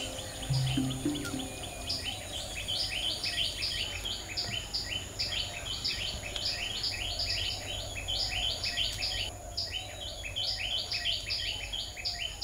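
Birds chirping in quick succession, many short falling notes overlapping, over a steady high insect whine.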